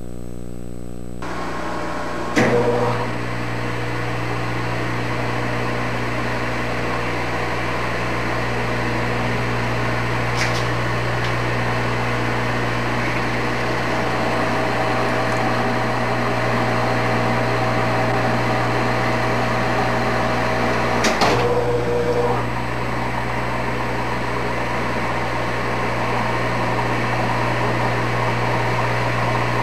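Engine lathe running under power while a tap held in the tailstock drill chuck cuts internal threads in the spinning workpiece: a steady motor hum with machining noise that comes in about a second in. A sharp knock sounds twice, about two seconds in and again about two-thirds of the way through.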